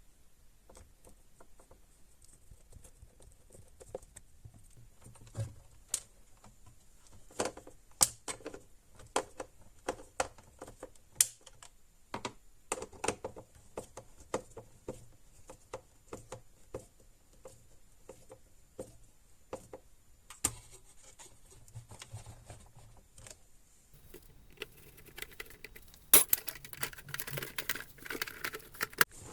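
Hand work on the parts of a small handheld vacuum: irregular light clicks and taps with a few sharper knocks. Near the end a denser stretch of scraping and rubbing sets in.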